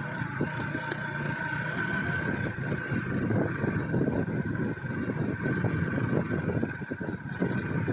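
Yamaha motorcycle engine running steadily at low speed, mixed with rumbling, uneven buffeting from riding over a rough dirt track and wind on the microphone.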